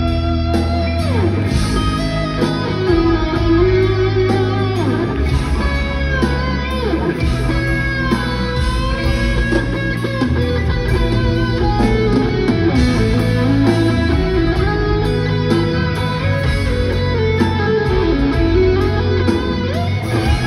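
Band playing an instrumental passage of the song: a guitar melody with gliding string bends over sustained bass notes and a steady beat.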